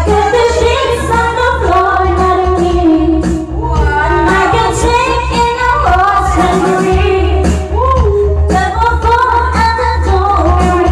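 A woman singing karaoke into a handheld microphone over a recorded backing track with a steady bass line.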